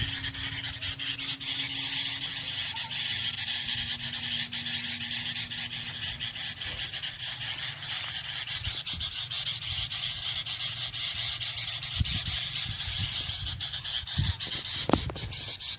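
A dense, steady chorus of rapid high chirping from animals in a garden, with a low steady hum for about the first six seconds and a few soft knocks near the end.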